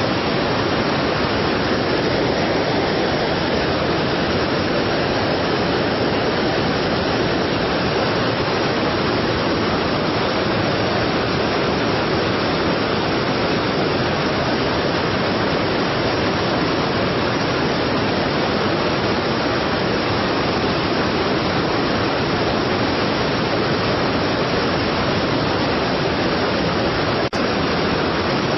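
Strong waterfall: a steady, even rush of heavily falling water with no change in level.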